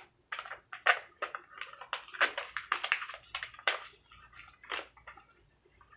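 A sheet of paper being crumpled by hand around a bobby pin: irregular crinkles and crackles, coming thick and fast at first and thinning out over the last couple of seconds.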